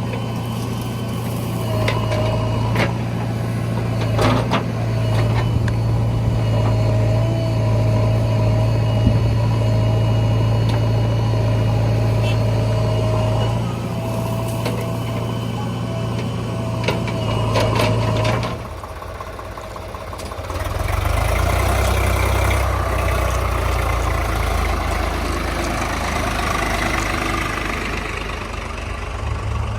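Heavy diesel engine running steadily with a steady whine and a few sharp knocks. About nineteen seconds in, the sound drops briefly, and from about twenty-one seconds a deeper, rougher engine sound carries on.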